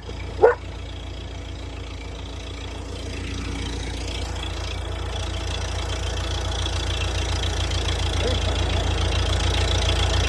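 An engine idling steadily on its gravity-fed fuel supply, still warming up, growing gradually louder. A dog yips twice near the start.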